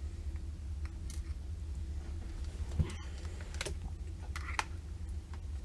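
Scattered light clicks and taps of small laptop parts and screws being handled during reassembly, over a steady low hum.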